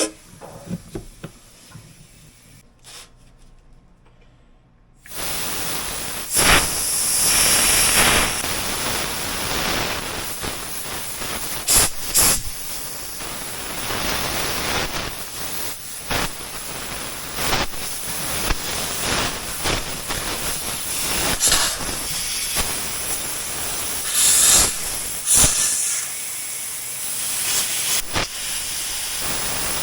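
Pressurised nitrogen blasting through a clogged air-conditioner condensate drain line, to clear the blockage: a loud hiss starts suddenly about five seconds in and keeps going, surging in repeated spurts as water and gunk are forced through the line.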